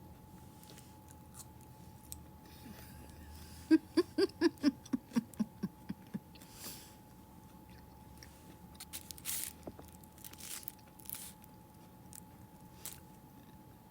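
Close-up mouth sounds of eating a burrito and tortilla chips: chewing, smacking and crunching. About four seconds in comes a quick run of about ten short vocal sounds that fall in pitch, the loudest part, and a faint steady high hum sits underneath.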